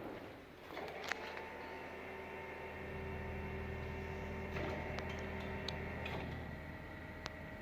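Electric drive of a welding rotary positioner running: a steady motor whine that starts up about a second in, with a low hum that grows stronger about three seconds in and a few light clicks.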